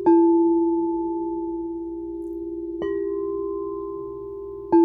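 A bell-like tone struck three times, at the start, about three seconds in and near the end. Each strike rings on as a steady low hum with a few higher overtones, fading slowly.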